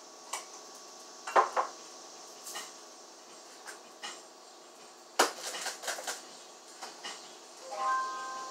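Pots, pans and utensils clattering and clinking at a stove: sharp knocks about a second and a half in, then a quick run of clinks around five to six seconds in.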